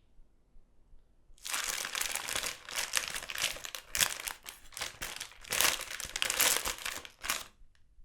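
Chip bag crumpled by hand: after a quiet first second and a half, a long stretch of dense, crackling crinkles, ending with a few small crackles near the end.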